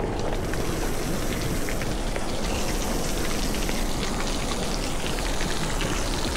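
River rapids rushing steadily: a dense, even wash of water noise with fine splashing ticks throughout.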